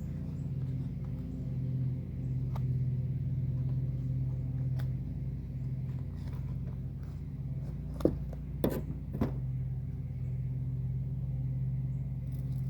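A steady low mechanical hum, like a motor running, with a few sharp clicks or taps about two-thirds of the way through.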